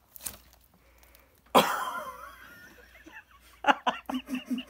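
A sudden loud burst about a second and a half in that fades over a second or so, then a person laughing in quick rhythmic bursts, about four a second, near the end.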